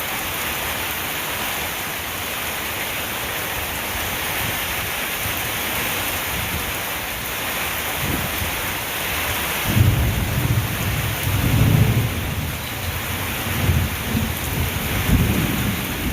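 Heavy thunderstorm rain falling as a steady hiss. From about ten seconds in, thunder rumbles low and swells a few times.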